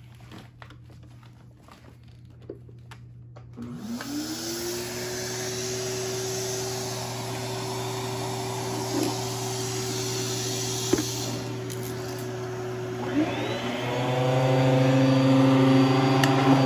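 Bissell canister vacuum cleaner switched on: its motor spins up with a rising whine and then runs steadily with a rush of airflow. Near the end a second rising whine joins and the running gets louder.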